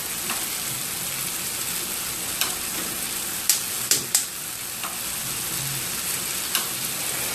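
Scrambled eggs with tomato frying in a skillet: a steady sizzle, with a few sharp crackles and pops from the oil around the middle.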